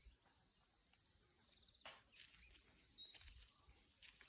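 Near silence with faint insect chirping: short, high, buzzy trills repeating about once a second. A soft click about two seconds in.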